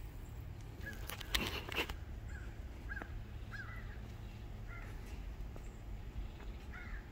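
A bird calling repeatedly with short, arched notes, about six of them spread over several seconds, above a steady low rumble. A few sharp clicks about a second and a half in are the loudest sounds.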